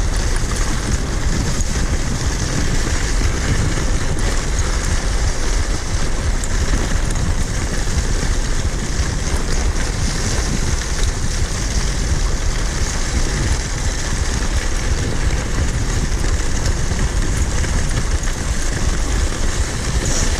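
Steady rushing noise of wind buffeting the microphone, with the hiss of kicksled runners gliding over snow.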